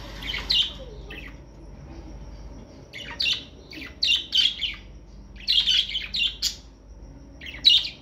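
Caged budgerigars chirping: a string of short, high, scratchy calls in irregular clusters.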